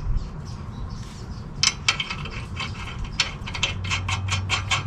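Hand ratchet clicking in quick, even strokes, about six a second from around the middle, as lug nuts are run onto the wheel studs to hold a new brake rotor in place.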